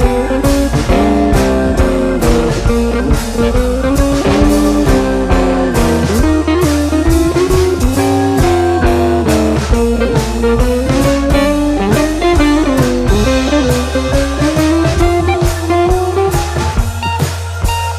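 Background music: a blues-style guitar melody with bending notes over bass and a drum kit.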